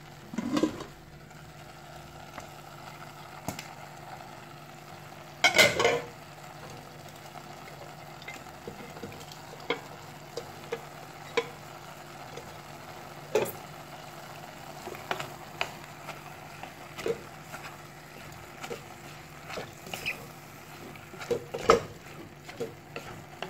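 Minced chicken frying in a stainless steel pot with a steady low sizzle, stirred with a wooden spoon that scrapes and knocks against the pot now and then, loudest about six seconds in and again near the end.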